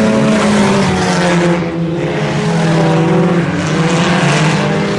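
IMCA Sport Compact race cars running in a pack on a dirt oval, their four-cylinder engines at high revs, with several engine notes at once rising and falling as the cars go by.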